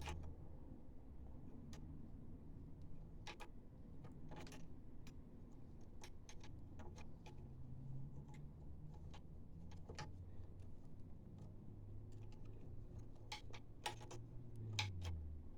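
Faint, irregular clicks and taps of hand work on an old lawnmower, with a low steady hum underneath.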